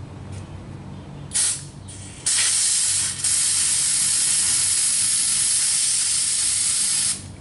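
Aerosol can of white lithium grease spraying into the end of a clutch cable: two short puffs, then a long steady hiss of about five seconds with a brief break near the start.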